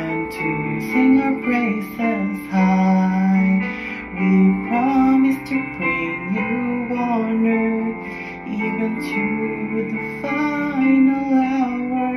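A man singing a slow hymn solo over an acoustic guitar accompaniment.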